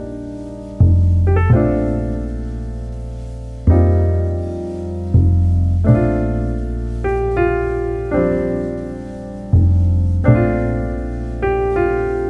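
Background piano music: slow chords, each struck and left to fade, over deep bass notes that come in anew every few seconds.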